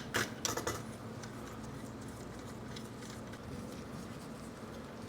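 A few light clicks of small metal bolts being handled in the first second, then quiet room tone with a faint steady hum.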